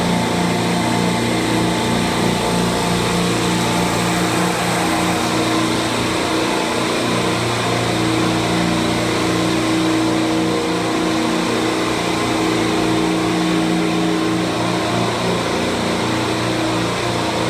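Refrigeration compressor rack with fourteen Copeland compressors on R404A, running: a loud, steady machine drone with a constant low hum.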